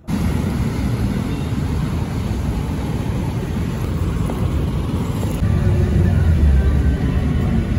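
Steady low rumble of vehicle noise that cuts in suddenly and grows a little louder about five seconds in.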